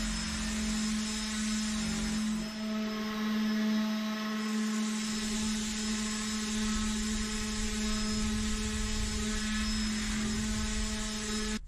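Electric random orbital sander with a 120-grit disc running steadily while sanding the trimmed edges of laminate on a plywood tabletop: a steady motor hum under the hiss of the disc.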